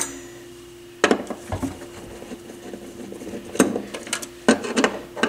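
Hands handling the parts of a Pioneer PL-50A turntable at its centre spindle: a string of irregular clicks and knocks of plastic and metal, the sharpest a little after the middle, over a faint steady hum.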